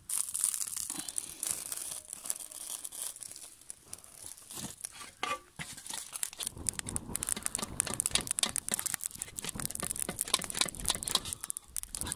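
Birch-wood fire crackling, with dense sharp pops and snaps over a high hiss. About halfway through, a fuller, lower rushing sound joins in.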